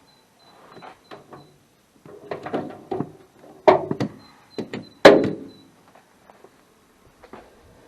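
A run of knocks and thuds from hard objects being handled, the two loudest about three and a half and five seconds in.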